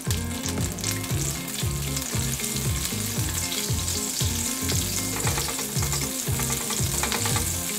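Butter melting and sizzling in hot olive oil in a stainless steel skillet, stirred with a silicone spatula.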